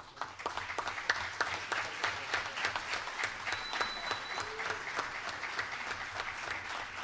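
Audience applauding: a steady patter of many hands clapping that begins at once and keeps on.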